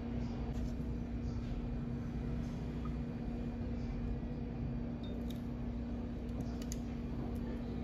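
Steady low hum of room tone, with a few faint clicks and taps about five to seven seconds in as a bottle is handled.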